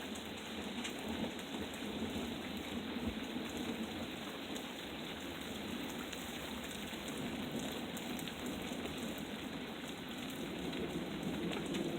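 Steady rain falling during a thunderstorm, an even hiss of drops on surfaces.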